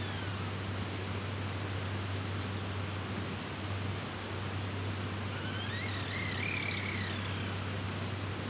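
Waterfall rushing steadily. About five and a half seconds in comes a whistled call that rises and then falls over about two seconds, and there are faint high chirps earlier.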